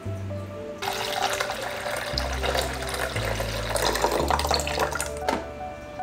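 Water pouring in a steady splashing stream for about four and a half seconds, starting about a second in and stopping near the end, over background music with a steady bass line.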